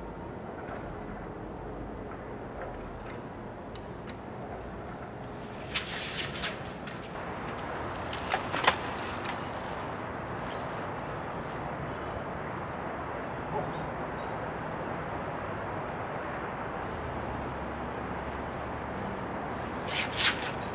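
Steady outdoor background noise with a few short sharp clicks and knocks about six, eight and twenty seconds in, from a fixed-gear bicycle ridden on a concrete ramp.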